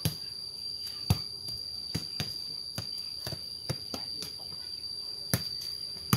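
A ball being kicked and juggled with bare feet, about ten short thuds at irregular spacing, a few of them sharper and louder. A steady high insect drone runs underneath.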